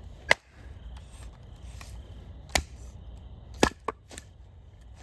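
Dry wood cracking and snapping in several sharp, irregular strikes as firewood is broken up, the loudest just after the start and a quick cluster of three near the end.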